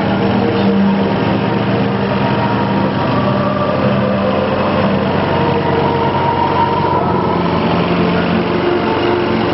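Small engine running steadily at an even pitch, the motor of a lit procession float.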